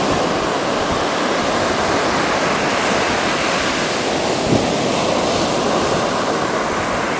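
A steady rushing noise that holds an even level without breaks.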